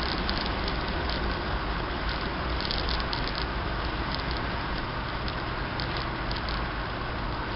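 Steady road and engine noise of a car driving, heard from inside the cabin, with a constant low hum under an even rush.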